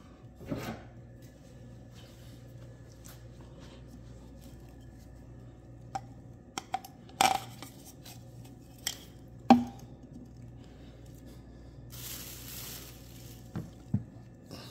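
Scattered clicks and light knocks of hands and a tool working the old O-ring off the removed oil filter housing cap, the loudest knock about nine and a half seconds in, with a short rustle about twelve seconds in. A faint steady hum runs underneath.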